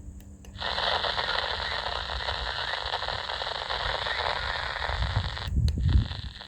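Static hiss from a CB radio's speaker on a channel with no voice coming through, opening after a couple of clicks about half a second in and cutting off with clicks near the end.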